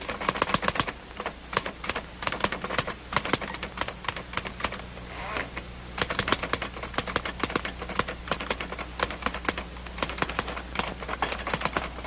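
Typewriter being typed on steadily: rapid, uneven key strikes, over a low steady hum.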